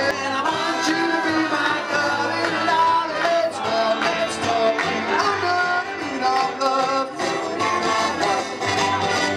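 Live music: electric guitar played over a steady beat.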